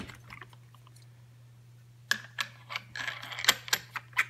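Clicks and clinks of small metal parts being handled as a cutting wheel and its flange nut are fitted onto an angle grinder's spindle: one tap at the start, then a run of sharp taps with a brief rattle about three seconds in.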